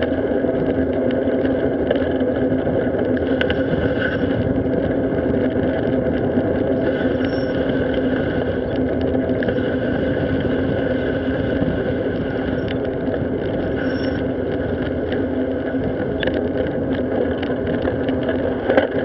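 Steady road rumble and wind noise from a bicycle riding along pavement, picked up by a handlebar-mounted action camera, with scattered small clicks and bumps.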